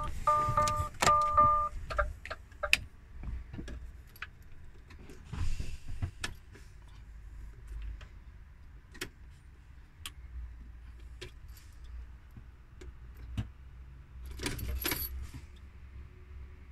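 DAF XF truck's dashboard warning chime beeping in three short, even pulses about two a second, then stopping, as the cluster shows the automatic engine shutdown warning. Scattered clicks and light rattles follow, with a brief louder rustle near the end.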